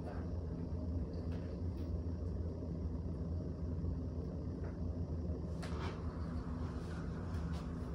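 Steady low hum of room noise, a few fixed low tones at an even level, with a few faint soft clicks or rustles, the plainest about five and a half seconds in.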